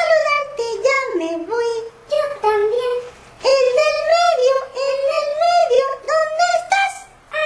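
A high, thin, sing-song voice, the kind a puppeteer puts on for a finger-puppet character, delivering a string of short phrases with brief pauses about two and three seconds in.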